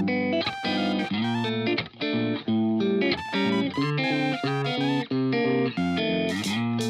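Background music: a plucked guitar melody of short, quickly changing notes.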